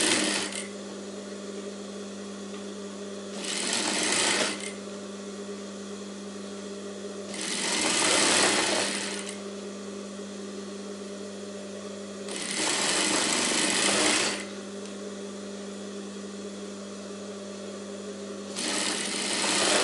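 Industrial sewing machine stitching a folded fabric strip onto a sleeve in four short runs of a second or two each, with the motor humming steadily in between.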